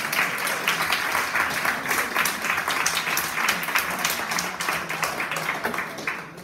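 A roomful of people applauding, a dense patter of clapping that dies away near the end.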